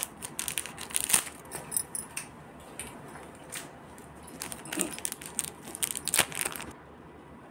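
Small jewellery pieces being handled: irregular clicks, light clinks and rustles that stop a little before the end.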